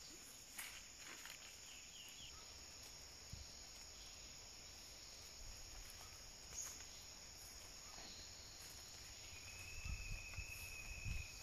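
Faint, steady high-pitched chorus of forest insects. Near the end a second, lower steady note joins for about two seconds, along with a few low thumps.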